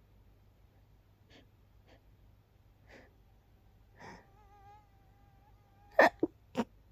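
Stifled, held-in sneezes: faint quick breaths at first, then a thin high whine held for about two seconds, then three sharp suppressed sneezes in quick succession near the end.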